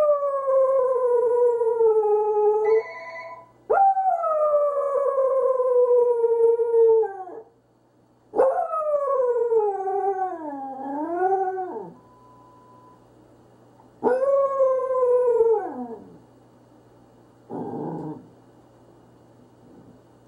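Pembroke Welsh Corgi howling: four long howls, each starting high and sliding down in pitch, the third wavering down and back up before it ends. A short low burst of sound follows near the end.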